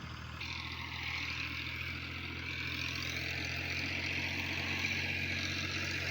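A vehicle engine running steadily, a low hum, with a hiss that grows slowly louder.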